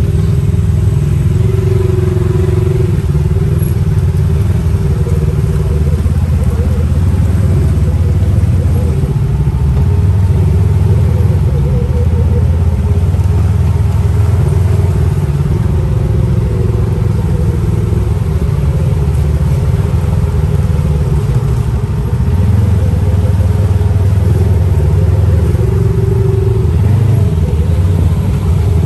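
Dune buggy's engine running steadily at cruising speed, heard from on board the open buggy.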